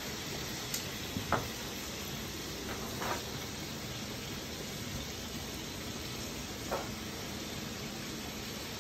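Chicken thighs sizzling steadily in a hot frying pan, just splashed with rice cooking wine, with a few short clicks or pops.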